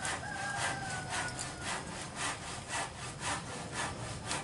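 Rhythmic hand strokes of scraping or filing, about two a second, steady and even.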